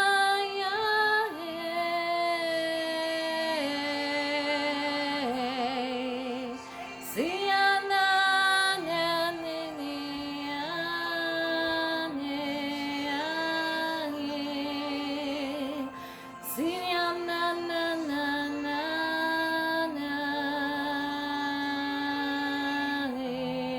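A woman singing in the Spirit, wordless or in tongues, in long held notes with vibrato that step between pitches. New phrases begin about a third and two thirds of the way through.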